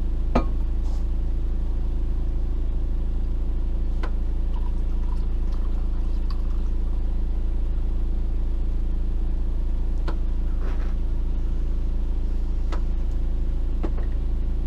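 An engine running steadily with a low, even hum, with a few faint sharp clicks over it.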